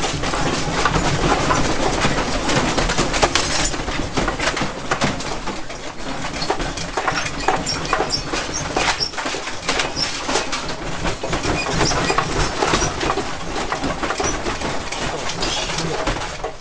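A room and its contents rattling and creaking continuously as the building shakes in an earthquake, many small knocks and clatters over a low rumble.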